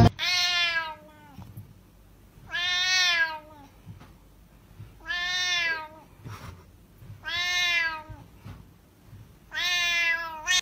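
A cat meowing loudly: five long meows about two and a half seconds apart, each rising and then falling in pitch.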